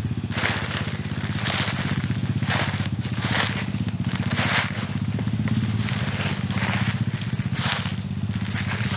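Pitster Pro pit bike's single-cylinder four-stroke engine running at low, fairly steady revs, with repeated crunching of dry leaves over it.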